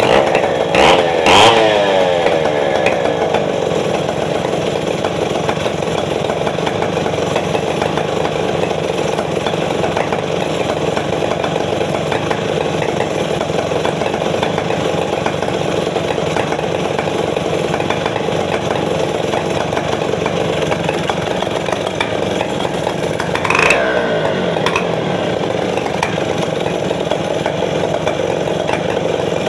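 Stihl 070 two-stroke chainsaw engine idling as it warms up, with two quick blips of throttle about a second in and one more near the end.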